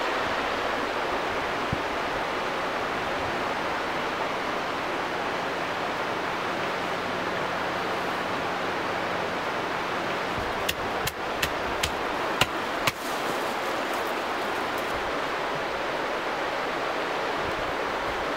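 Hatchet chopping wood: six sharp strikes, about two a second, a little past the middle, over a steady rushing noise.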